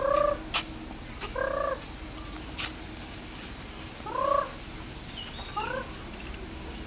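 Four short pitched animal calls, each lasting about a third of a second, spaced a second or more apart, with a couple of sharp clicks between them.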